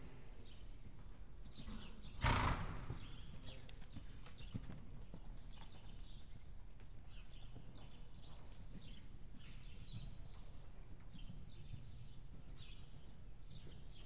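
Arabian mare's hooves beating steadily at a trot on soft arena footing. About two seconds in there is a short, loud rush of noise, the loudest sound in the stretch.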